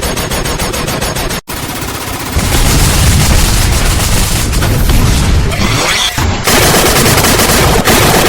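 Sustained machine-gun fire from library sound effects, a dense continuous rattle that cuts off sharply about a second and a half in, comes back, and grows louder and heavier about two and a half seconds in.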